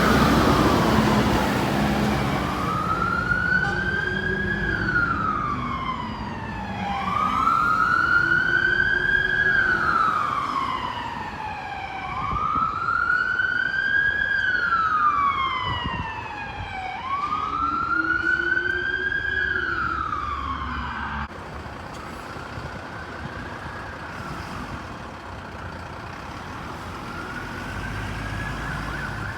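Fire engine siren sounding a slow wail, rising and falling about every five seconds, with the truck's engine and road noise loud near the start as it passes. About twenty seconds in the siren drops suddenly to a fainter level and keeps wailing in the distance.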